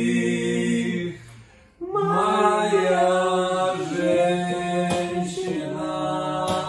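Male voices singing together in harmony: a long held note breaks off about a second in, and after a short pause a new wordless sung phrase begins and carries on.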